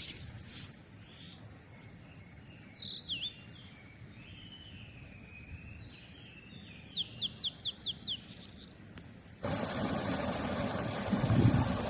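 Wild birds chirping over a quiet outdoor background, with a quick run of about six high, falling notes around seven seconds in. A few faint knocks sound in the first second or so, and near the end the background jumps suddenly to a louder, steady rushing noise.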